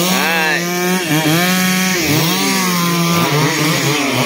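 Two-stroke chainsaws cutting felled rubber trees. More than one saw is running at once, and their engine pitch repeatedly drops under load and climbs back as they cut and ease off.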